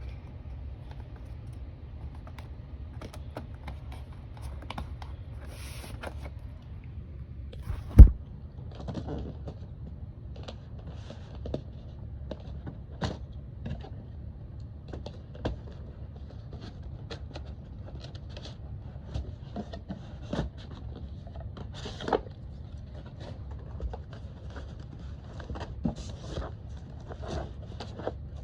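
Scattered clicks and light taps of a Razer Ornata V2 keyboard and its packaging being handled, with one loud thump about eight seconds in, over a steady low hum.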